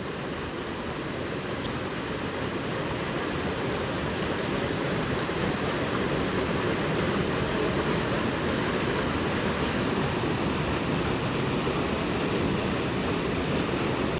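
Steady rushing of river water at a waterfall, growing a little louder over the first few seconds.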